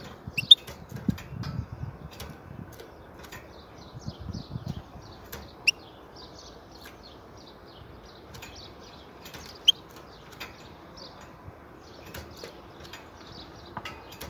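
European goldfinch twittering in a string of short, high notes, with a few sharper, louder notes, and its wings fluttering as it hops between perches in a wire cage.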